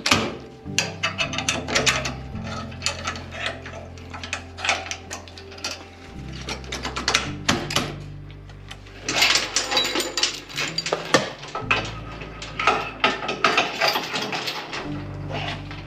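Background music with a bass line of held notes that change every second or two, under busy clicking percussion.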